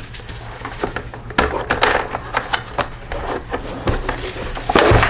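Irregular light clicks and knocks of mower parts being handled and worked loose, with a louder knock near the end.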